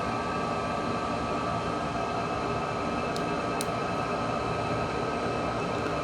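Steady machine hum with a faint high whine, unbroken throughout, and two light clicks about three seconds in.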